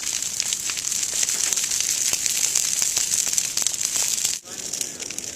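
Fire crackling and popping over a steady hiss. It breaks off briefly about four seconds in, then carries on a little quieter.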